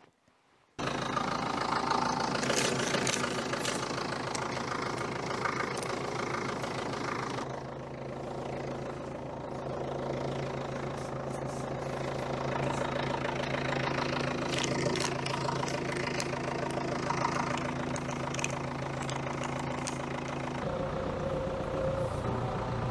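Ford tractor's diesel engine running steadily, coming in abruptly about a second in. Its note changes about seven seconds in and again near the end, when the tractor-mounted snowblower is turning and throwing snow.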